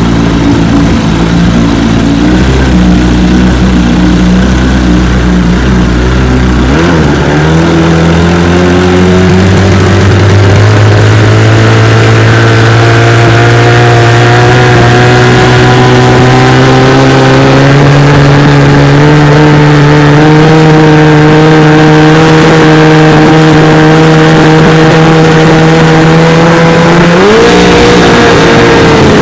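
1973 Johnson 25 hp two-stroke twin outboard motor pushing a boat: it runs steadily at low speed, is throttled up about seven seconds in, and its pitch climbs gradually and then holds high and even; near the end it briefly revs higher and drops back. It runs smoothly at speed, which the owner takes for the high-speed missing cured by cleaning the ignition points.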